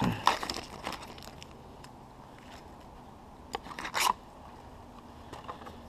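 Packaging from an oil change kit being handled: rustling and a few clicks in the first second, then a short crinkling burst about four seconds in.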